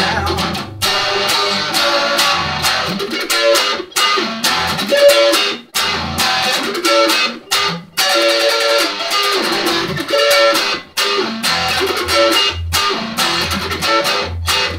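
Stratocaster-style electric guitar played through an amplifier in an instrumental break of a blues-rock song, with picked notes and short phrases and no singing.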